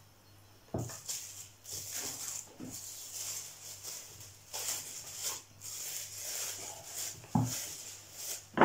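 Plastic cling film crinkling and rustling as a raw chicken fillet is laid on it and the film is folded over, on a wooden board, with a soft knock about a second in and another near the end.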